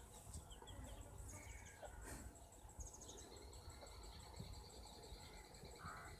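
Near silence: faint outdoor background with distant birds chirping and insects trilling.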